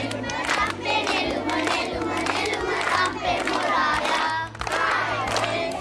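A group of children singing together in unison while clapping their hands.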